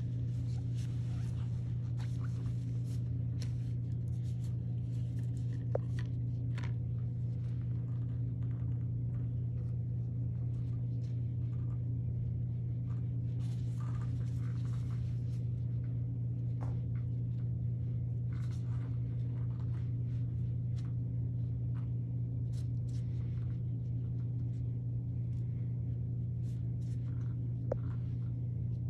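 A steady low hum with scattered soft clicks and rustles from a gloved hand working a tint brush and comb through relaxer-coated hair.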